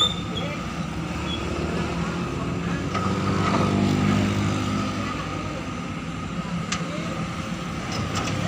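Excavator diesel engine running, swelling louder under load for a couple of seconds near the middle before settling back, with a few sharp clicks near the end.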